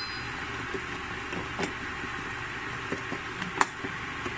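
A metal spoon stirring pili nut peels in water in a stainless steel pot, knocking against the pot in a few light clinks, the loudest about three and a half seconds in, over a steady hiss.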